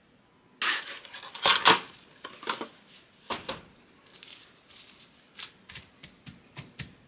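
Plastic cling film crinkling and crackling as it is opened out from around a sheet of puff pastry, in a string of short crackles that start about half a second in, loudest about a second and a half in.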